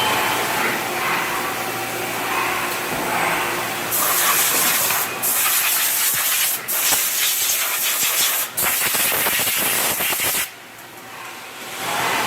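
A loud steady hiss starts about four seconds in, breaks off three times very briefly, and cuts out about ten and a half seconds in.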